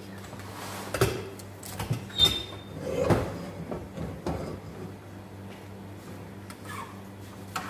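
Cookware handled at a gas stove: a metal spatula knocking in a frying pan and a pot lid being moved, four or so short knocks in the first half, one with a brief metallic ring. A steady low hum runs underneath.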